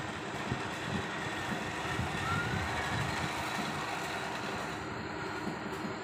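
Open-air ambience: wind buffeting the microphone as a rough, uneven rumble over a steady hiss, with one short rising bird chirp about two seconds in.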